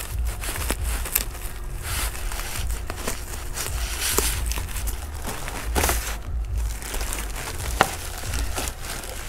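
Rustling and crinkling with scattered light clicks and knocks from handling the plastic rear diffuser of an aftermarket body kit, over a low rumble; one sharper click comes near the end.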